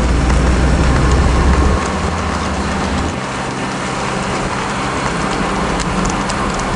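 A vehicle driving, with steady road and wind noise; its deep low rumble drops away in two steps, about two and three seconds in.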